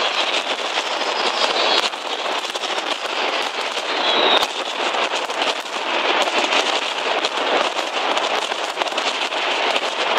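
Mascletà firecrackers going off in a dense, unbroken barrage of bangs and crackling. A short whistle cuts through about four seconds in.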